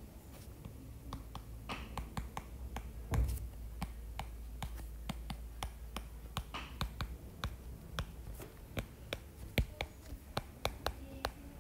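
Stylus tip tapping and clicking on a tablet's glass screen while handwriting: irregular sharp ticks, several a second, coming thicker in the second half, over a faint low hum.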